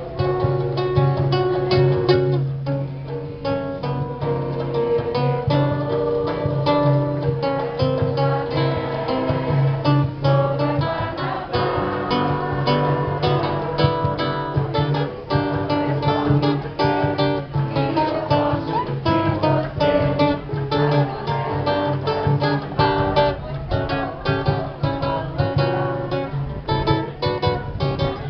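A large ensemble of acoustic guitars playing a samba, with rhythmic strumming under a plucked melody and a steady bass line.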